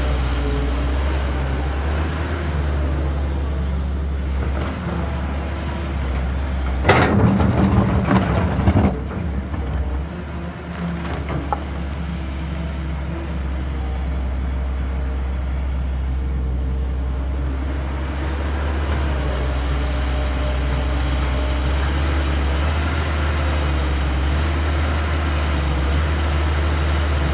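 Heavy diesel engines of construction machinery running steadily with a low drone. About seven seconds in, a loud rattling clatter lasts about two seconds.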